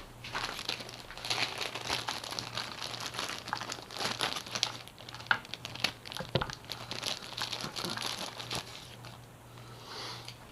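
Plastic crinkling and rustling with many small clicks as hands handle motorcycle turn-signal wiring and connectors, over a steady faint low hum.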